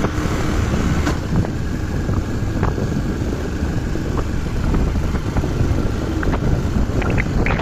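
A vehicle's engine and road noise while on the move, with wind rushing over the microphone, and a few short rattling clicks near the end.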